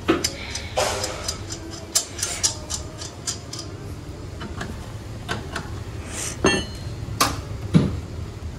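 A steel wheel spanner and a car's wheel nuts and steel wheel give irregular metallic clicks and clinks, with a few louder sharp knocks, as the nuts are worked.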